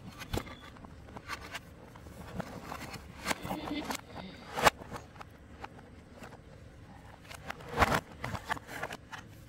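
Handling noises from unpacking an LED video light kit: scattered clicks and knocks of the light panel and its parts against the cardboard box and tile floor, with rustling of cables and packing in between. The sharpest knock comes about halfway through, and a louder cluster of knocks about eight seconds in.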